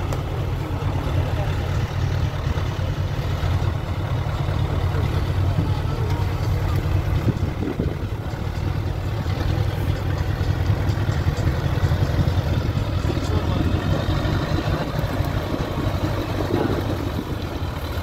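Six-wheeled off-road trial truck's engine running with a deep, steady note as the truck crawls through trees and over a rough dirt slope.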